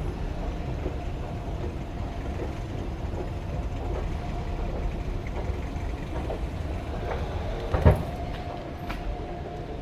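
Escalator running with a steady low mechanical rumble and faint hum, with one sharp thump about eight seconds in.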